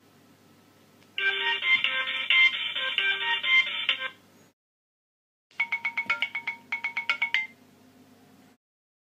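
Alcatel One Touch 511 mobile phone's startup and shutdown tunes: a short electronic melody of about three seconds starting about a second in, then after a brief pause a quicker run of short beeping notes.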